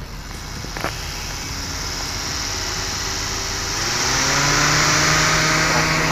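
Nissan Grand Livina's electric radiator cooling fan running behind the front grille. A rush of air grows steadily louder, and a motor hum climbs in pitch and then holds about four seconds in as the fan speeds up.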